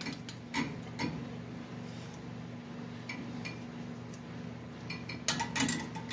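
Light metallic clinks and taps of hand tools against rear brake caliper parts: a few single clinks, then a quick cluster of them near the end. A steady low hum runs underneath.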